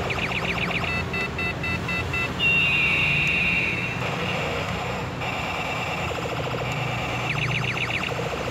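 Battery-powered toy excavator driving, its built-in speaker playing electronic sound effects over a steady motor hum. Rapid chirping pulses give way to a row of short beeps about a second in, then a loud tone falls in pitch for a second or so, and the chirping returns near the end.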